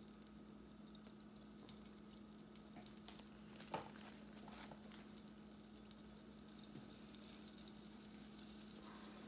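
Frozen samosas frying gently in vegetable oil in a stainless saucepan: a faint, low-temperature sizzle with scattered small crackles and one louder pop about four seconds in, over a steady low hum.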